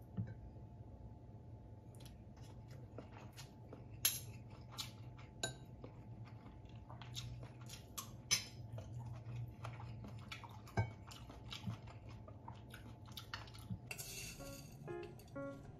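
A fork and spoon clinking and scraping against a ceramic bowl and plate during eating, in many small sharp clicks, with some chewing, over a steady low hum. Near the end, ground coffee is poured from a glass jar into a glass with a brief hissing rattle, and soft music starts.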